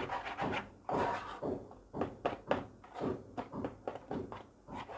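Wooden spatula stirring and beating a thick potato purée in a saucepan: a quick, irregular run of soft squelching scrapes and knocks against the pot, about three strokes a second.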